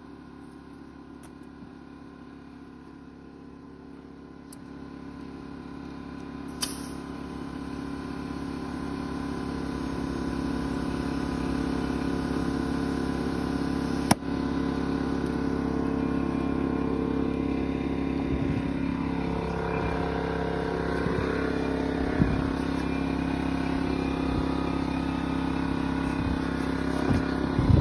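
Air compressor motor running steadily while a tire is inflated through an air hose on its valve stem. It grows louder over the first several seconds, with a sharp click about fourteen seconds in.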